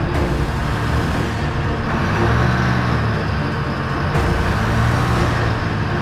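Heavy multi-axle military truck's engine running as the vehicle drives past, the rumble swelling twice.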